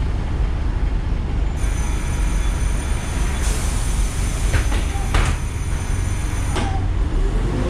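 Ikarus 435 articulated diesel bus heard from inside while running: a steady low engine and road rumble. From about a second and a half in until near the end a high hiss with faint whistling tones joins it, and two short knocks come about five seconds in.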